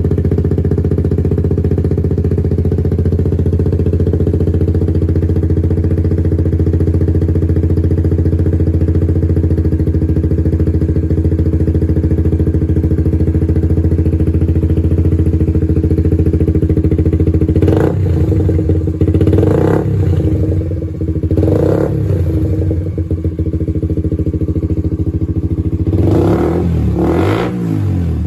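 2018 Suzuki GSX-S125's single-cylinder four-stroke engine idling steadily through a Dominator GP1 exhaust with the dB killer removed. It is then revved in three short throttle blips about two seconds apart, and twice more near the end.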